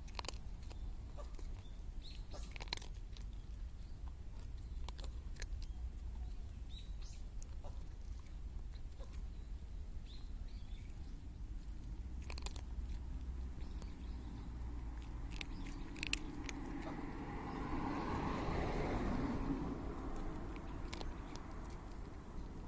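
A kitten crunching dry cat food, with scattered crisp crunches as it chews. A broad swell of noise rises and falls about three-quarters of the way through.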